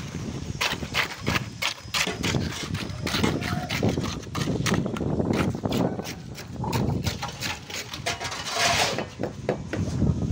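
Many quick, irregular knocks and taps of construction work on a site where concrete is being placed into wooden formwork.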